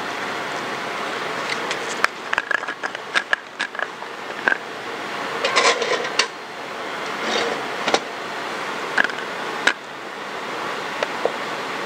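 Steady hiss of lab ventilation, with a scattering of light clicks and knocks from handling an analytical balance: its glass draft-shield door and plastic weighing dish. The knocks are densest about halfway through.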